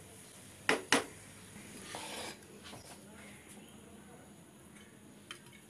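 Two quick sharp knocks, most likely a wooden spatula against a frying pan holding cooked rice, about a second in. A brief scraping follows, then faint room tone with one small tick near the end.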